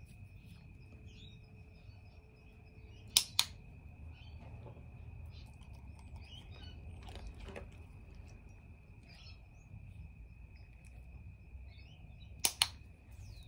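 Dog-training clicker pressed twice, each time a quick double click, about three seconds in and again near the end, marking the dog during muzzle conditioning. A steady high insect trill runs underneath.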